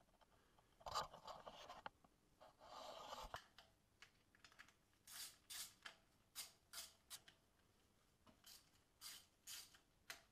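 Hand ratchet being worked in short strokes, each swing giving a quick rasp of clicks, about two a second, as it undoes the valve cover screws; a few seconds of handling and rustling come first.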